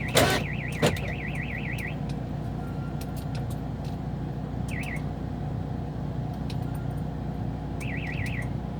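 Car alarm sounding in fast warbling up-and-down chirps for about two seconds, then one short chirp and another brief burst near the end: the alarm keeps going off on its own. A loud thump and a smaller knock come just after the start, over a steady low hum.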